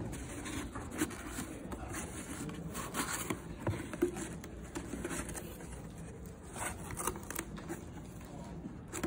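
Cardboard pet carrier being opened by hand: its locking handle tabs and flaps rub and scrape against each other in short, irregular rustles.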